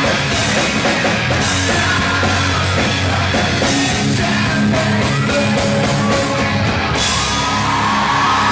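Pop-punk band playing live: electric guitars, bass, drum kit and lead vocal, loud and dense, picked up from a club balcony by a camcorder's built-in microphone.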